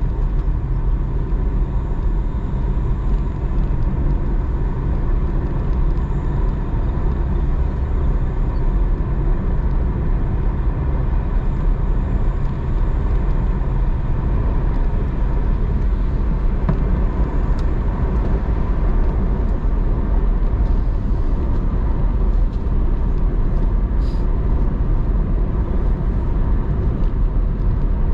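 A car driving along a road: a continuous low rumble of engine and road noise, steady throughout.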